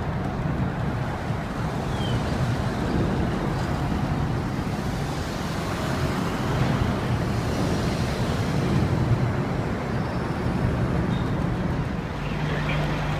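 Steady low rumble of fire truck engines running at the fire scene, with general street noise.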